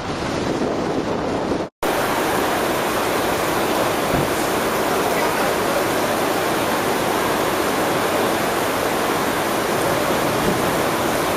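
Waves washing in with wind on the microphone, cut off abruptly about two seconds in. Then comes a steady, even rush of water, like a waterfall or fast stream.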